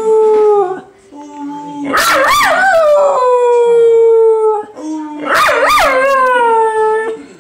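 Dog howling: three long howls, each starting with a wavering yodel and then held on one note that slowly sinks.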